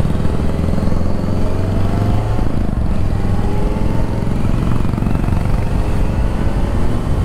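Kawasaki Z900's inline-four engine on its stock exhaust, pulling at road speed with heavy wind rumble on the microphone. Its pitch climbs slowly, drops back once about two and a half seconds in, and climbs again.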